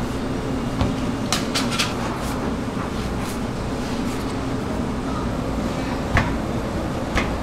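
Dough scraper knocking and scraping against a stainless-steel mixer bowl as dough is pulled out, a scattering of short sharp clicks and knocks, the loudest about six seconds in. Under it runs a steady low machine hum.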